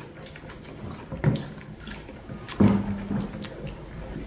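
Spoon stirring a thin, wet cassava starch batter in a plastic bowl: sloshing and scraping, with two louder knocks of the spoon against the bowl about a second and two and a half seconds in.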